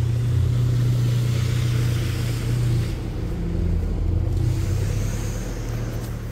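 A steady low mechanical hum with a hiss above it, easing slightly about three seconds in.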